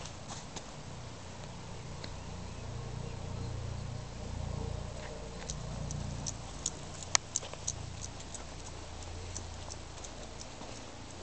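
Footsteps on a dirt and grass path: scattered light clicks and taps, thickest about six to eight seconds in, over a steady low rumble.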